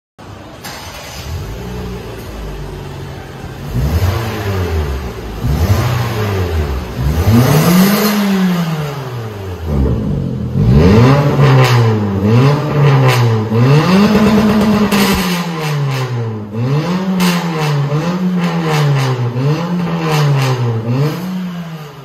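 Perodua Bezza's exhaust through an aftermarket A Performance cat-back system with its remote-controlled valve open, the engine revved again and again, the note rising and falling. After a few seconds near idle the revving starts, and in the second half it settles into quick blips about once a second.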